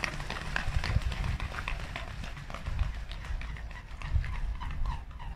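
A flock of swans taking off from a river, their feet slapping the water and their wings beating in a quick, even patter that grows fainter toward the end.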